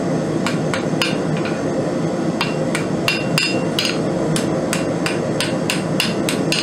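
A light hand hammer, under a pound, strikes hot steel on an anvil at about three blows a second, with a short pause around one and a half seconds in. Some blows leave a brief metallic ring. The hammering bends the tip of a drawn-out railroad spike down 90 degrees over the anvil's edge and squares it up.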